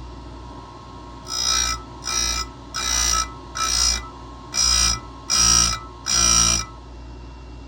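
Electric chainsaw-chain grinder with a CBN wheel grinding the cutters of a steel race chain: seven short grinding passes, each about half a second, with a high ringing screech, about one every three quarters of a second, over the grinder's steady motor hum.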